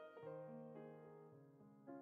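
Quiet background piano music: soft notes and chords struck about every half second, each fading away.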